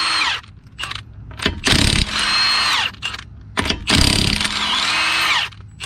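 Impact wrench run in bursts on a car's wheel lug nuts: the tail of one burst right at the start, then two longer bursts of hammering, its motor pitch dropping as each burst ends.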